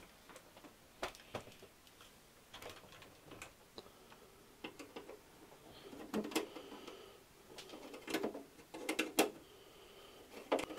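Scattered light clicks and knocks of hands handling the metal shielding inside an opened Compaq Portable computer, a dozen or so irregular taps with a few louder ones in the second half.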